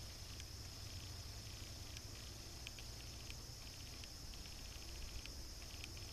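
Insects buzzing in a steady high-pitched drone, with scattered rapid ticking clicks, over a faint low steady rumble.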